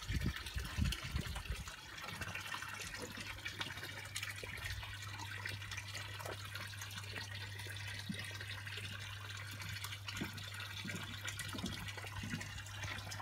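Water in a garden koi pond running and trickling steadily, under a constant low hum. There are a few soft low bumps in the first two seconds.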